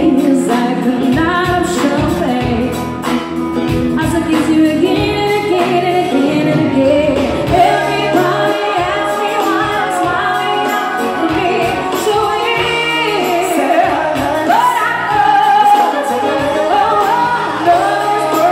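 Live band performing: a woman sings lead through a microphone over keyboard, electric guitar and drums, with a steady beat.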